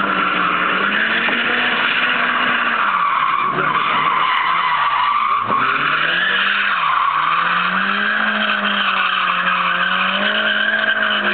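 Mazda MX-5 drifting: its four-cylinder engine is held at high revs, dipping and climbing again a few times, over a continuous hiss and squeal of tyres sliding on tarmac. The car sweeps close past about halfway through, then holds a steadier note.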